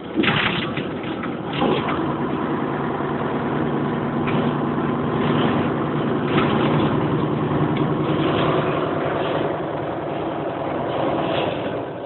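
Bova Futura coach heard from inside the cabin while driving at speed: a steady engine drone under road and wind noise. A sudden burst of louder noise comes just after the start, and another about a second and a half in.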